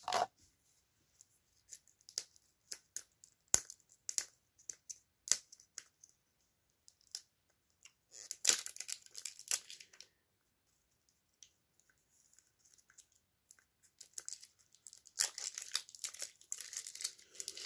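A small toy packet's wrapper being torn open and crinkled by hand: scattered small clicks and rustles, then a stretch of crinkling about eight seconds in and another near the end.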